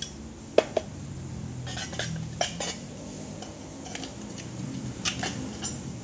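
Scattered light metallic clinks and taps of thin sheet-metal pieces cut from an old oil filter casing, handled and worked by hand, with a few sharper knocks spread through.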